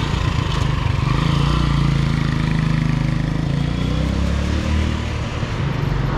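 Motorcycle engine running with road noise, its low hum shifting slightly in pitch.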